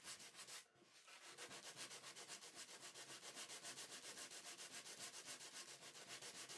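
Faint hand sanding: a sandpaper-wrapped block rubbed over the corner of a softwood box in short, quick back-and-forth strokes, several a second, with a brief pause about a second in.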